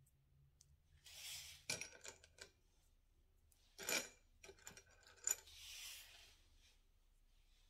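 Faint handling sounds of small hard decorating candies: short rustles and a few sharp clicks and clinks, the sharpest about two seconds in and a little past five seconds.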